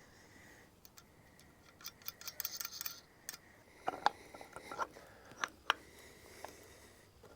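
Irregular metallic clicks and clinks of a bolt and hand tools being worked, as a bolt is fitted and fastened through the mounting of a mini excavator's quick coupler. A quick run of small ticks comes about two seconds in, and a few sharper clinks follow a second or two later.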